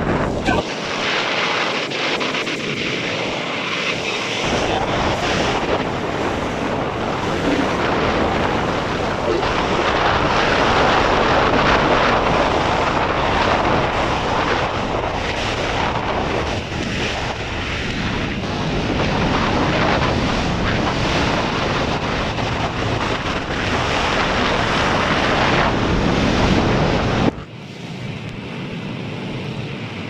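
Wind blasting the microphone and water rushing past a speedboat running fast across open sea, a loud, dense noise that swells and eases. The noise drops suddenly near the end to a quieter rush.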